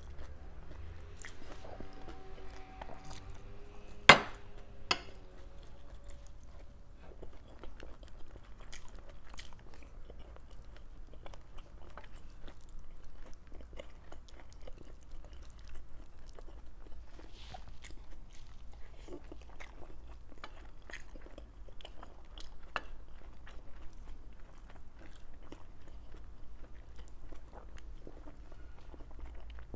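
Close-up chewing and wet mouth sounds of a person eating rice and pork stew, with many small clicks of lips and teeth. A sharp knock about four seconds in, then a smaller one a second later, stands out above the chewing.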